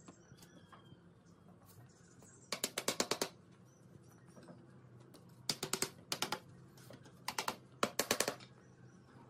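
Wooden mallet tapping a thin wooden slat rail home in a chair frame: four quick runs of rapid, light, sharp taps, about ten a second, each run lasting under a second.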